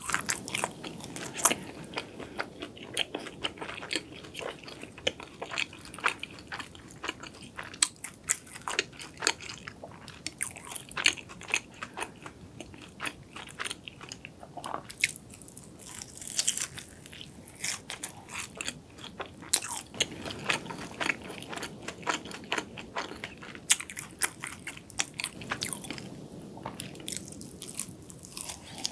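Close-miked eating of a cronut: the flaky, layered croissant-doughnut pastry crackles and crunches in many small sharp bites and chews, with a fresh bite near the end.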